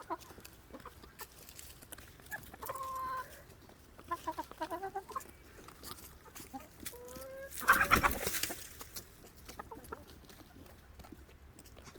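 Chickens clucking as they feed, with a held call, a run of short notes and a few rising calls, and one louder harsh call about eight seconds in.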